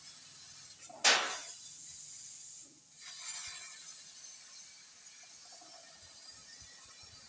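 Gas hissing from a 3 kW laser cutting machine: a sudden loud burst about a second in that dies away, then a steady hiss from about three seconds on.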